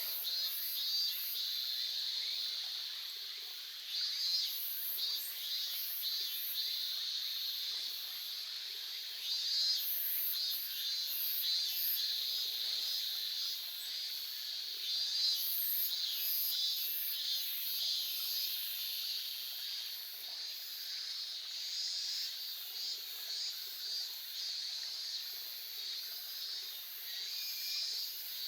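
Insects chirring in a dense chorus with a high, pulsing trill that swells and fades, over the faint rush of a babbling stream.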